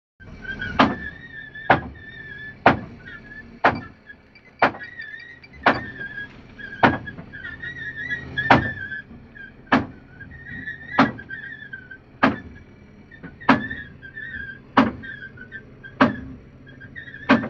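Fishing sonar's loudspeaker: a sharp click about once a second with each transmission, and a warbling, whistle-like echo tone wavering between the clicks.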